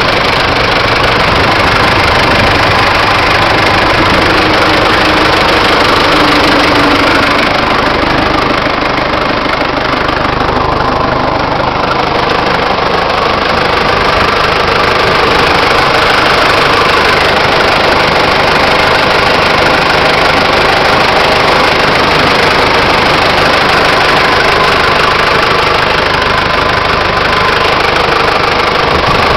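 John Deere 6400 tractor's turbocharged four-cylinder diesel engine running steadily, heard up close at the engine bay.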